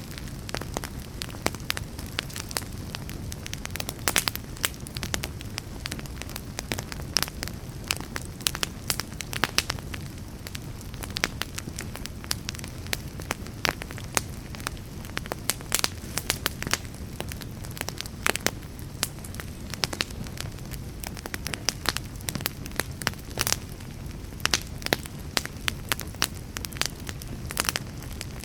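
Wood fire burning with a steady low rumble of flames and frequent sharp, irregular crackles and pops.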